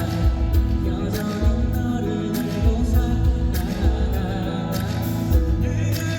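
Live concert performance of a pop song: a full band with a steady drum beat and cymbals under sustained chords, with a singer's voice over it.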